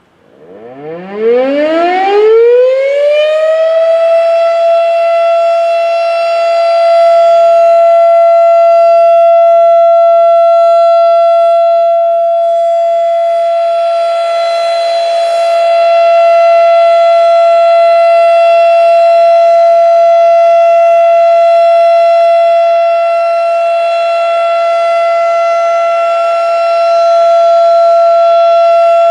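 Federal Signal Thunderbeam RSH-10 outdoor warning siren, a healthy three-phase unit, sounding its monthly test. It winds up from a low growl to full pitch over about four seconds, then holds one steady wail. The wail swells and fades slightly about every ten seconds as the rotating head sweeps past.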